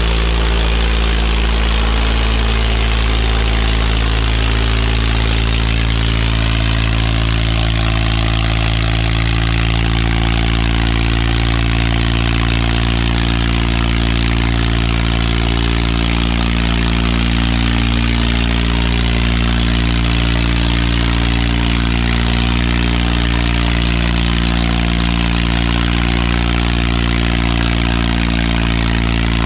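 Swaraj 855 FE tractor's three-cylinder diesel engine running loud and steady at constant speed. It is labouring under heavy load while dragging two disc harrows through ploughed soil.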